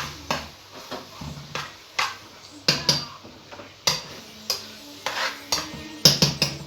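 A utensil knocking and scraping against a cooking pot while mince is stirred, in about a dozen irregular clinks and scrapes.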